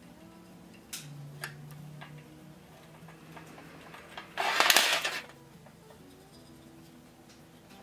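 Steel buggy seat irons handled on a steel worktable: a few light metal clinks, then a little past the middle about a second of louder metal-on-metal scraping and clatter as the irons are laid out on the tabletop.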